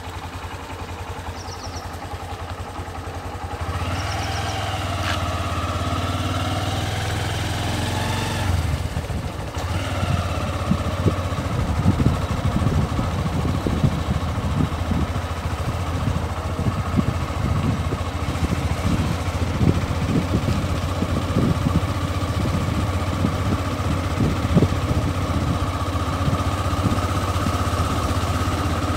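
A vehicle engine running steadily while driving along a dirt road, its hum growing louder about four seconds in. From about ten seconds in, irregular low thumps run over it.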